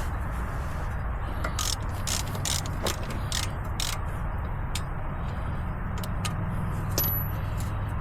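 Hand ratchet wrench clicking in short, irregular runs as the bolts of a front wheel hub are worked loose, over a steady low rumble.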